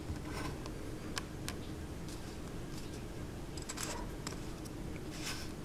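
Small metal switchblade parts being handled on a tabletop: scattered light clicks and taps as pieces are picked up and set down, with small clusters of clicks about four and five seconds in, over a steady low hum.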